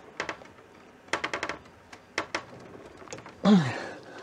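Sharp metallic clicks and taps from a screwdriver working a seized Phillips machine screw inside a VW Beetle door's vent wing, including a quick run of five or six clicks about a second in. The screw will not turn and the driver tip is close to rounding it out. Near the end a short grunt falling in pitch is the loudest sound.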